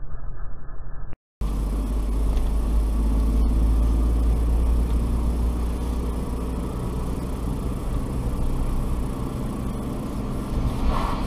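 Steady low rumble of a car driving at about 30 km/h, heard from inside the cabin through a dashcam's microphone, after a brief dropout about a second in. Near the end an oncoming car passes with a short rush of noise.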